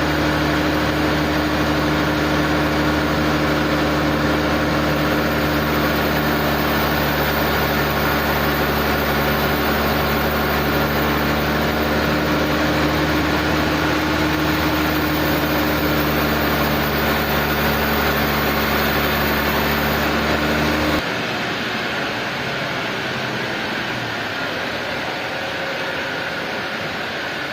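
Sawmill machinery engine running steadily with a low, even drone. About three quarters of the way through, the low drone drops away, leaving a quieter steady mechanical hum.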